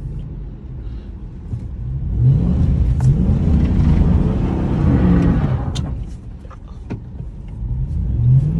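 Dodge Ram 1500's 5.7-litre Hemi V8, heard from inside the cab, revving in surges as the truck slides on snow. The revs climb about two seconds in, rise and fall a few times, drop off near the middle and build again near the end.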